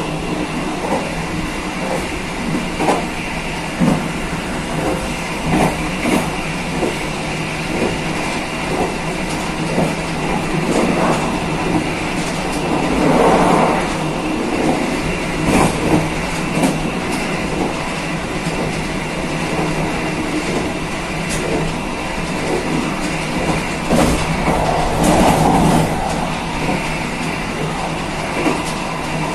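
KA Kaligung passenger train running along the line, heard from the rear of the train: a steady rolling noise of steel wheels on rail, broken by irregular clicks and knocks as the wheels pass over rail joints. It swells louder twice, once about halfway through and again near the end.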